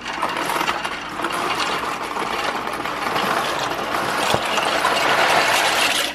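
Tap water running hard into a cooking pot, a steady rush that cuts off suddenly near the end.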